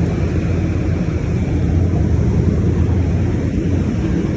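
Rooftop refrigeration condensing unit for a walk-in cooler running: a steady, loud low hum of the compressor with the rush of the condenser fan, unchanging throughout.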